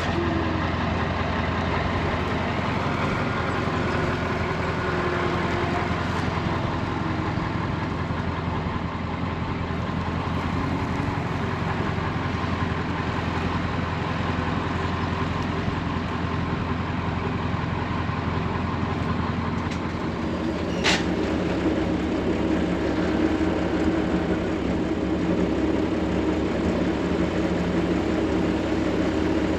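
Farm machinery engine running steadily with a low drone. About 21 seconds in there is a sharp click, and the drone changes to a different, somewhat higher hum.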